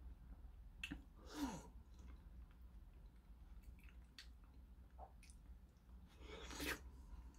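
Faint mouth sounds of someone eating a soft, ripe persimmon: wet sucking and slurping with small lip and tongue clicks. There is a louder slurp about a second and a half in and another near the end.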